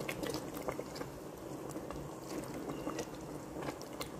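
Bolognese meat sauce bubbling and spattering in an open pressure cooker pot as a silicone spatula stirs through it, with scattered small pops over a steady low bubbling.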